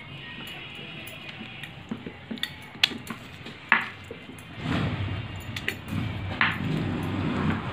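Wooden rolling pin working small rounds of dough on a wooden board, with scattered light knocks and clinks; the rolling gets louder and steadier about halfway through.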